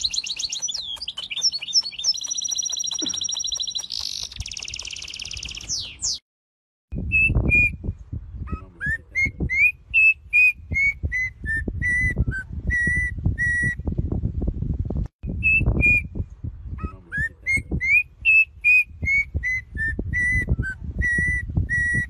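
A small red-faced finch sings fast high trills and chirps for about the first six seconds. After a short break, a yellow-and-black troupial whistles a melodic song of clear notes that rise and fall, sung as two phrases in a row, with a low rumble underneath.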